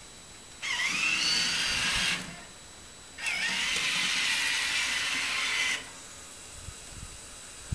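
Electric drive motor of the i-Shovel robotic snow shovel prototype whirring in two bursts, one about a second and a half long and one about two and a half seconds. Each starts with a quick dip and rise in pitch as the motor spins up, then holds a steady whine.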